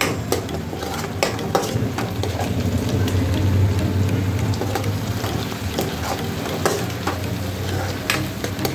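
Chopped onions sizzling in hot oil in a nonstick frying pan while a metal spatula stirs and scrapes them, with frequent short clicks of the spatula against the pan. A low steady hum runs underneath. The onions are nicely fried by this stage.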